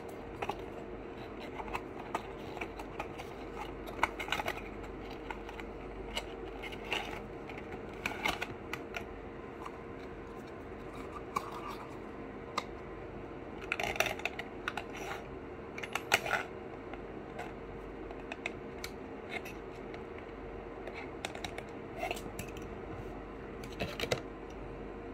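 Cardboard box and clear plastic tray of a 1:64 die-cast model car being opened and handled: scattered short clicks, crinkles and rustles, a few louder snaps around the middle, over a steady background hum.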